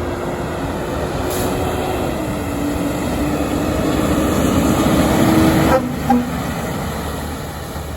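Fire truck air horn sounding one long blast, its pitch dropping slightly about two seconds in. It cuts off sharply near six seconds, followed by a quick short toot.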